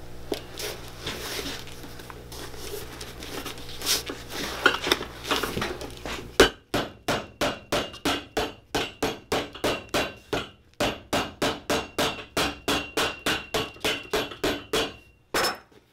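A leather midsole being handled and pressed onto a boot's bottom, with rustling and a few knocks. Then, about six seconds in, a cobbler's hammer beats the midsole down in a steady run of sharp strikes, about three or four a second, stopping shortly before the end.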